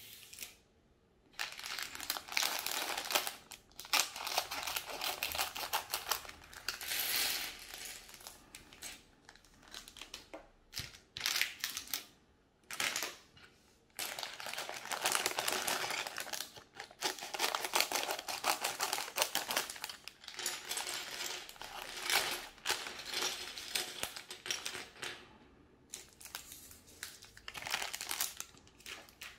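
Clear plastic LEGO parts bags crinkling as they are cut open with scissors and handled, with loose plastic bricks clattering as they are emptied onto a wooden table. The sound comes in bursts of several seconds with short pauses between.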